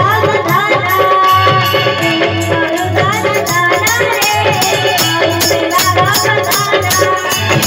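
Live devotional bhajan music played loud over a PA: an electronic keyboard melody with gliding notes over a fast, steady percussion beat.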